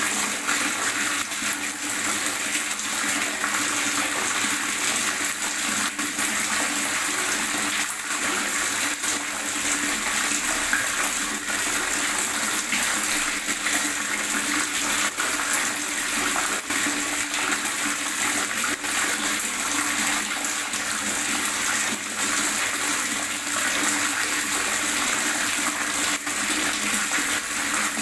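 Water gurgling steadily: a continuous bubbling, splashing rush with many small ticks in it and no pauses.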